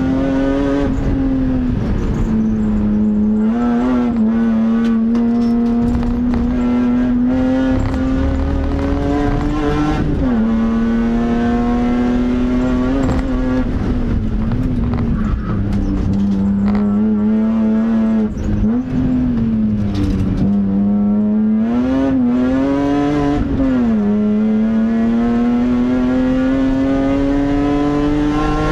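BMW M3 race car engine running hard at track speed, heard from inside the cabin. Its pitch holds steady along the straights, dips and swells briefly several times as it shifts and takes corners, and climbs slowly near the end.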